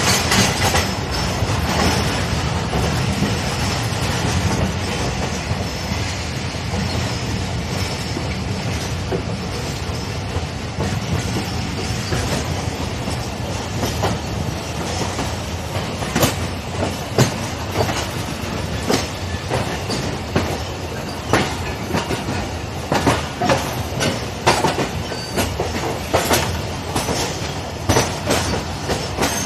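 Passenger train wheels running over rail joints and pointwork as the train pulls out through a station yard: a steady rumbling clatter, with sharp, irregular clacks growing louder and more frequent from about halfway through.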